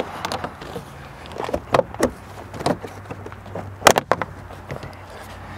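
Plastic rear quarter trim panel of a 2005–2014 Ford Mustang convertible being pried up off the body by hand, its retaining clips letting go in a series of sharp clicks, the loudest pair about four seconds in.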